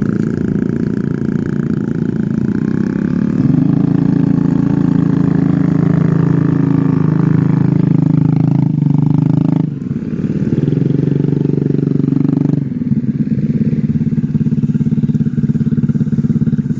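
Small motorcycle engine running under throttle. It grows louder a few seconds in, eases off and picks back up around the middle, then settles lower near the end.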